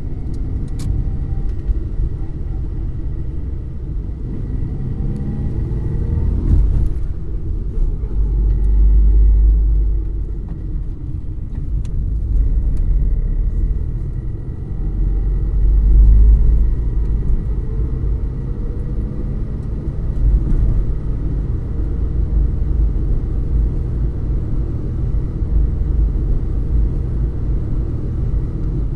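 Car engine running, heard from inside the cabin as a heavy low rumble whose engine note rises and falls, swelling twice. A short knock comes about seven seconds in.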